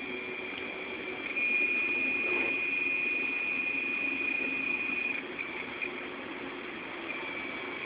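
Seagate Momentus 5400.2 (ST9100824AS) laptop hard drive giving off a steady high-pitched squealing whine over a low hum. The whine gets louder a little over a second in, holds for about four seconds, then breaks into short bits. This is the abnormal noise of a failing drive that fails its SMART check.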